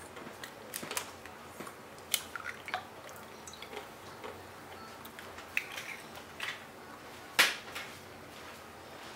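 An egg tapped and cracked against a glass mixing bowl and opened into milk: a few light clicks and taps in the first few seconds. One sharp knock about seven seconds in is the loudest sound.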